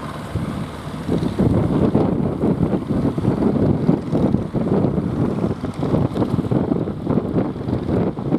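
Wind buffeting the microphone in choppy gusts over the steady running of a boat engine. The gusts grow heavier about a second and a half in.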